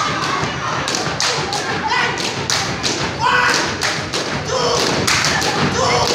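Gumboot dancers stomping and slapping their rubber boots: a quick, uneven run of sharp thuds and slaps, several a second, with voices shouting over them.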